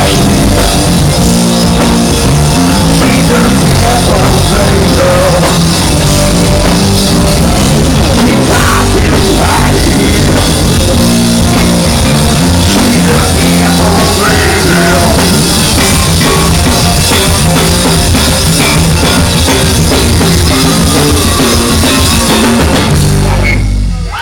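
Live rock band with drum kit playing loud. The recording is distorted and overloaded because the camera was very close to the band.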